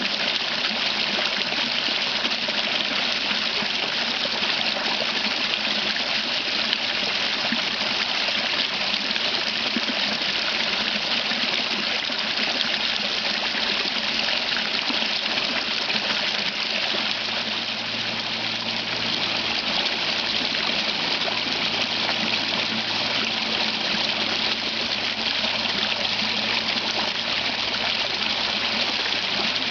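Small creek waterfall: water pouring steadily over a rock and splashing.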